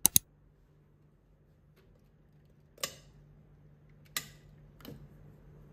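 Sharp switch clicks: a quick double click at the start, then single clicks about three, four and five seconds in, one of them from the switch on a table lamp's base. A faint steady hum lies underneath.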